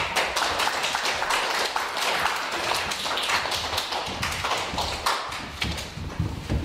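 A small audience applauding after a flute solo: dense, steady clapping that thins out about five and a half seconds in, with a few low thuds near the end.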